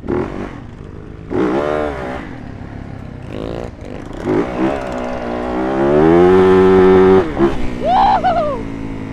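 Two-stroke dirt bike engines revving up and down several times. The loudest rev climbs and holds high for about a second before dropping off sharply, with a quick rev blip shortly after.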